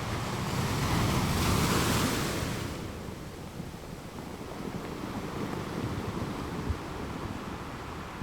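Sea waves washing, with a louder surge of wash in the first three seconds that then settles to a steady noisy wash, over a low rumble of wind on the microphone.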